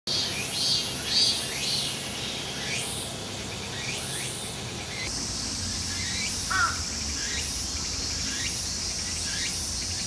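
Cicadas (semi) calling in summer trees: first a shrill call pulsing in repeated rising strokes, about two a second, then, after a change about halfway, a steady unbroken high sizzle with strokes still over it. A brief lower call cuts in once about six and a half seconds in.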